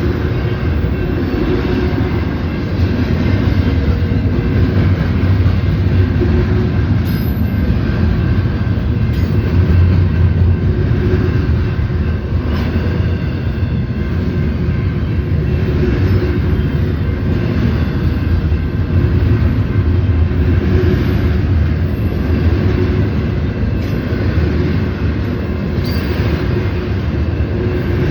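Union Pacific intermodal freight train's cars rolling past: a loud, steady rumble of steel wheels on rail with a few faint clicks.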